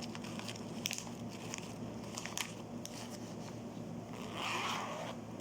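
Faint small clicks and crinkling of accessories and their packaging being handled, with a louder crinkle about four seconds in.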